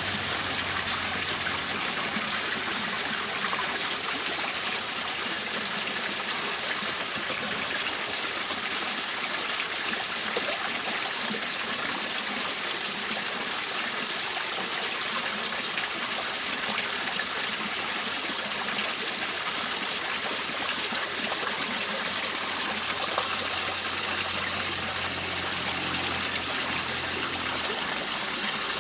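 Steady rush of water splashing into a fish pond, the flow kept going by the pond's pump.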